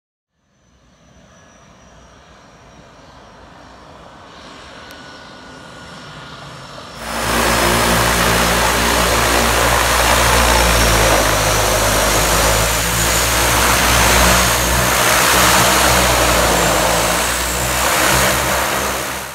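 Single-engine turboprop floatplane engine running close by, a low drone under a high, wavering turbine whine, as the plane taxis on its floats. It is faint and slowly growing at first, then about seven seconds in turns suddenly loud.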